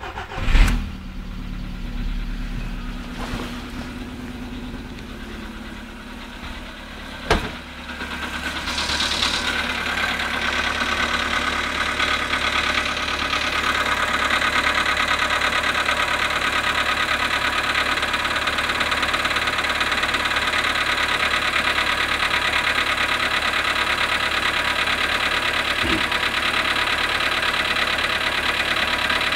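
Volkswagen Polo sedan engine idling just after a cold start at −7.5 °C, with the knock that the owner is recording. A sharp click comes about seven seconds in; from about eight seconds the idle is louder, with a fast, even knocking that holds steady.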